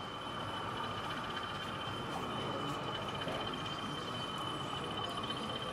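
OO gauge model electric multiple unit running along the layout, giving a steady high-pitched whine over a low background hubbub of the exhibition hall.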